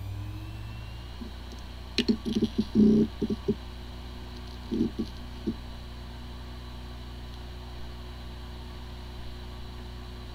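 Hard disk drive with corrupted firmware running with a steady hum, sounding like a healthy drive even though the computer cannot detect it. A rising whine finishes at the start, a quick run of head seek clicks comes about two seconds in, and a few more clicks come around five seconds in.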